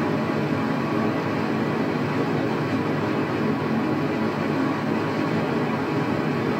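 Waterfall roar: a steady rush of falling water that never lets up.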